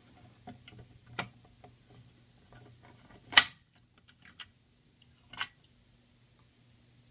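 Screwdriver turning in the lock of a metal-and-plastic fire alarm pull station, with small clicks and scrapes, then a loud sharp clack about three and a half seconds in as the front cover releases, and a second, softer clack about two seconds later as the cover swings open.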